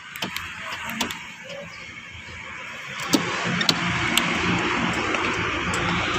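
Honda City car running steadily, with a few sharp clicks in the first seconds and a step up in level about three seconds in.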